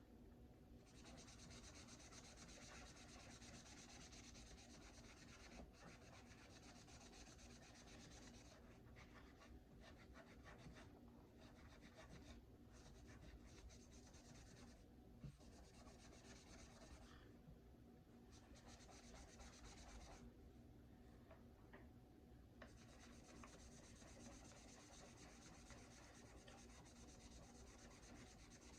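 Faint hand scrubbing on a Glock pistol barrel, rubbing off its vinegar-softened black finish. The rubbing runs in stretches, with short pauses several times through the middle.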